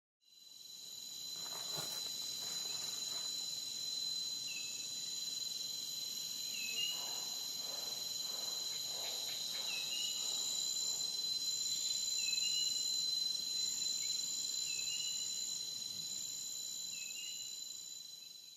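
Steady high-pitched insect chirring, like crickets, with a short rising chirp every two to three seconds. It fades in at the start and fades out at the end.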